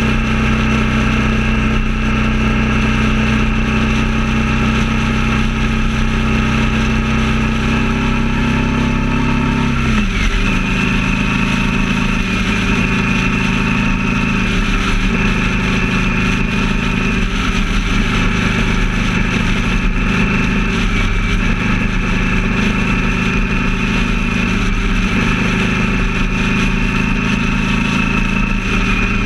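Motorcycle engine running steadily at freeway speed over wind and road noise. About ten seconds in, its pitch drops abruptly and then holds at the lower pitch.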